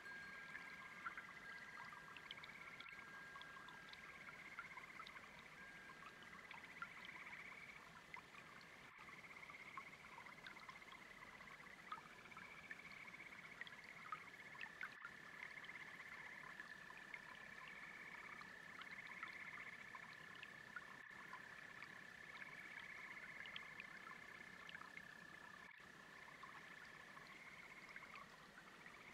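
Faint chorus of frogs and toads: short trills repeating over and over, with one long steady trill held from about halfway in for more than ten seconds. A soft running-water trickle from a brook sits underneath.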